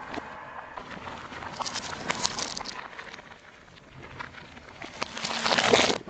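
Crackling and crunching as a car tyre rolls over and crushes objects, with a cluster of sharp cracks about two seconds in. The crunching grows loudest near the end and cuts off abruptly.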